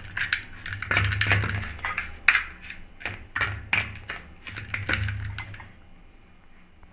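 Metal spoon stirring a ground spice mix moistened with mustard oil in a metal plate, with repeated clicks and scrapes of spoon on metal. The stirring stops about two-thirds of the way through.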